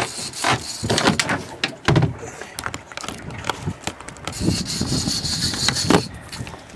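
Irregular knocks and bumps of gear being handled on a small boat, with a stretch of high hiss in the middle.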